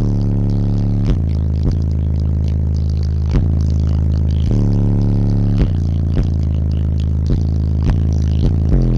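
Eight Resilient Sounds Platinum 15-inch subwoofers in a car audio build playing bass-heavy music loudly. Long, deep held bass notes change pitch every second or so.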